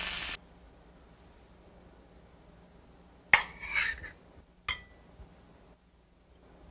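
Frying sizzle from the pan cuts off abruptly; then a metal spoon clinks against a stainless steel bowl while scooping peeled cherry tomatoes onto a plate, once about three seconds in with a short rattle and again about a second and a half later, each with a brief ring.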